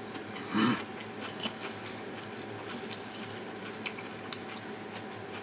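Quiet eating sounds: faint chewing and light clicks over a steady low hum, with one short louder mouth sound about half a second in.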